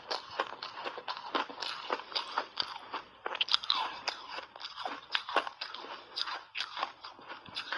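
A mouthful of refrozen ice being chewed, crunching and crackling rapidly as it breaks up between the teeth.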